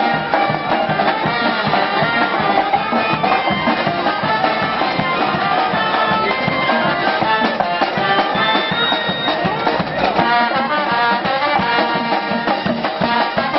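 Marching street band of trumpets, trombone, saxophone, bass drum and snare drum playing a tune while walking in procession.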